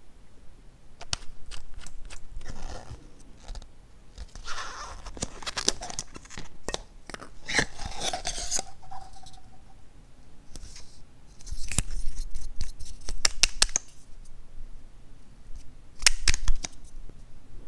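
Cosmetic containers being handled: plastic caps unscrewed and twisted open, and applicator brushes and wands dabbed and scraped against a glass dish. This makes an irregular string of clicks and taps, with a longer stretch of scraping and rubbing in the middle.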